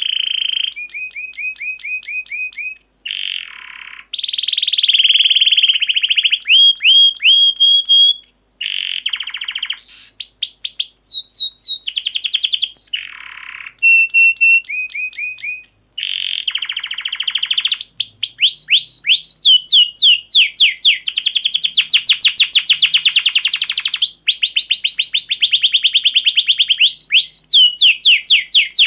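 Canary singing: a long run of rapid trills, rolls and repeated high whistled notes, phrase after phrase with short breaks between them.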